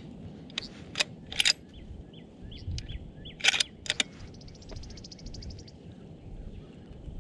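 Wind buffeting the microphone with birds calling over it: several sharp high calls in the first four seconds, short chirps between them, and a fast trill about five seconds in.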